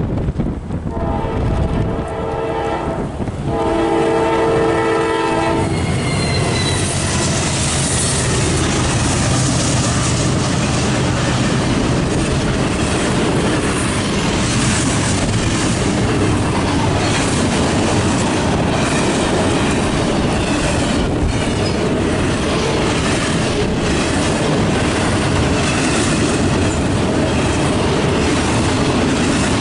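Norfolk Southern freight train's air horn sounding two blasts of a multi-note chord, the first about two and a half seconds long and the second about two seconds, as the train approaches. Then the diesel locomotives pass close by with a low engine drone, followed by double-stack intermodal well cars rumbling and clacking steadily over the rails.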